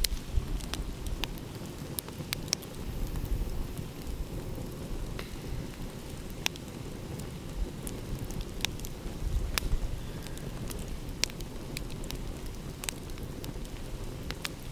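Wood fire crackling, with irregular sharp pops and snaps, over a steady low rumble of ocean waves.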